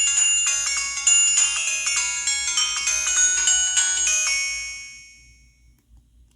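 A downloaded ringtone playing from a Samsung SGH-T629 mobile phone: a quick melody of short notes, several at a time, that stops about four seconds in and rings away. The next ringtone cuts in at the very end.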